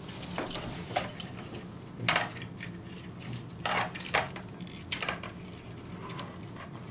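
Parts of a transformable robot action figure clicking and clacking as they are handled and folded: a scatter of short, sharp clicks and small rattles at irregular intervals.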